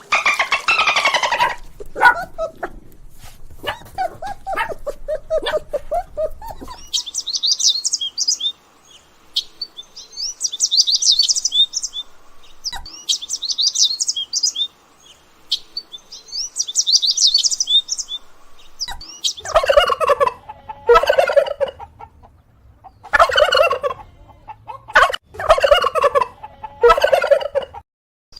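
Domestic fowl calling in separate stretches: pitched calls at first, then bursts of high, rapid chirping, and in the last third repeated short, louder calls of about a second each.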